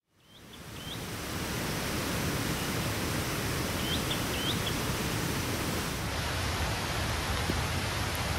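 Heavy rain falling steadily, an even hiss that fades in over the first second or so. A few short rising chirps come through it near the start and again about four seconds in.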